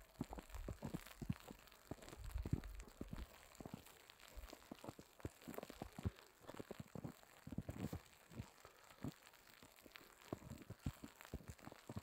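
Wet snow pattering on an umbrella overhead: a faint, dense, irregular run of light ticks.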